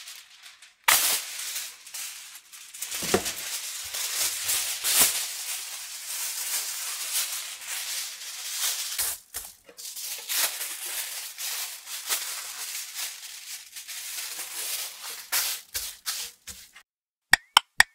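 Aluminium kitchen foil crinkling and rustling as a large sheet is unrolled, folded and pressed flat by hand. Near the end comes a quick run of sharp clicks, about three a second.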